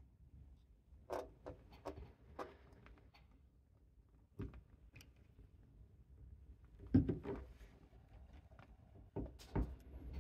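Scattered light clicks and taps of a model railway switch and oiling needle being handled on a tabletop, about a dozen in all, the loudest about seven seconds in.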